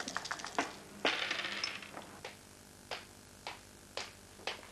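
A quick clicking rattle and a short clatter from the game pieces on the café table, then footsteps of hard-soled shoes on a hard floor, five steps about two a second.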